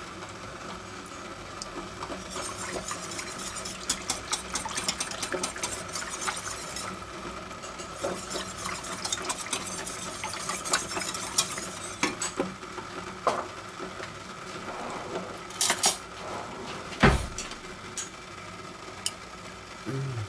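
Wire whisk stirring gravy in a stainless steel saucepan, its wires ticking and scraping rapidly against the pot, with scattered metal clinks and one heavier knock about three quarters of the way through.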